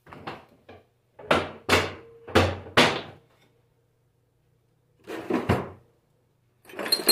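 A series of knocks and clunks of hard objects being handled and set down on a workbench: a few light taps, then four loud knocks in quick succession, a pause, and two more groups of knocks.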